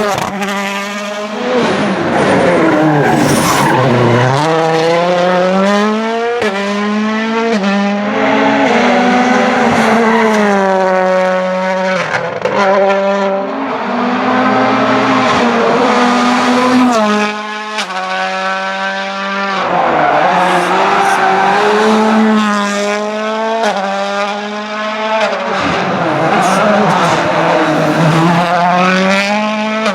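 Toyota Yaris WRC rally car's turbocharged 1.6-litre four-cylinder engine at full stage pace, its pitch climbing hard and dropping back again and again as it shifts up through the gears and lifts for corners. Tyre noise rides under the engine.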